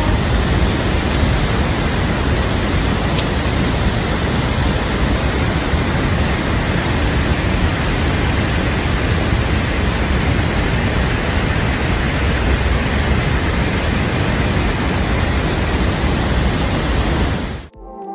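Steady, loud rush of Abiqua Falls, a tall waterfall pouring over basalt columns, heard close up as an even roar of falling water. It cuts off suddenly near the end.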